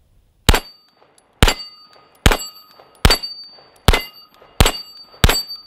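Canik TP9SFL 9mm pistol fired seven times in a steady rhythm, a bit under a second apart, with steel plate targets ringing with a clear tone after the hits.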